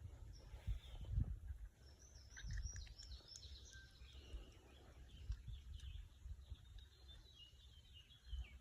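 Songbirds chirping and singing in a run of short, high notes, over quiet outdoor background noise with scattered low bumps on the microphone.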